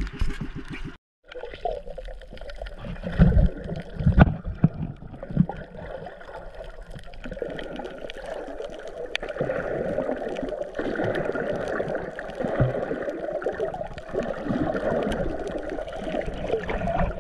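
Muffled underwater water noise picked up by a camera held beneath the surface during a dive: a steady gurgling wash, with a few heavy low thumps around three to four seconds in.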